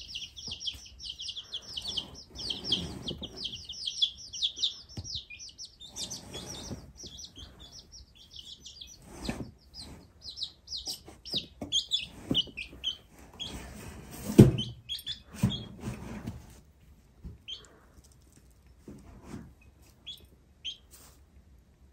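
A few baby chicks peeping in fast, high, repeated calls, dense at first and thinning out over the second half. Scattered soft knocks run under the calls, with one louder thump about two-thirds through.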